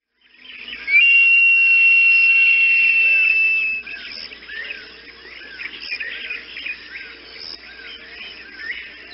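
Bird calls: a loud, long, steady whistle lasting nearly three seconds and falling slightly in pitch, then a string of short repeated notes about every half second over softer background chirping.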